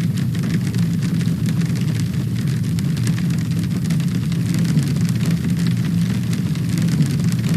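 Heavy rain and hail pelting down: a dense, steady patter of small hits over a low rumble.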